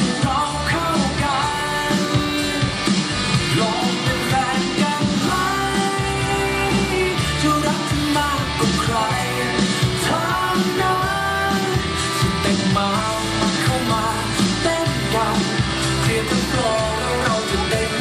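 Upbeat Thai pop-rock song with a sung vocal line over a steady beat, played loud through a sound system.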